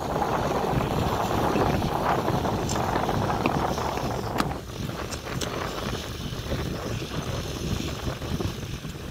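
Wind buffeting an outdoor phone microphone: a gusting rushing noise that eases a little about halfway through, with a few faint ticks.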